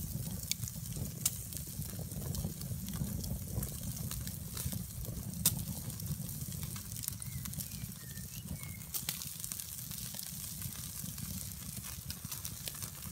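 Steaks sizzling on a wire grill over a wood campfire, with the fire crackling and giving a few sharp pops, the loudest about five and a half seconds in, over a steady low rumble.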